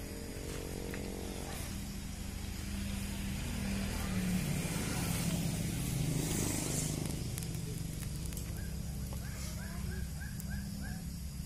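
Motor vehicle engine running nearby as it passes: a steady hum that grows louder through the middle and then eases off. Near the end come short high chirps, about five a second.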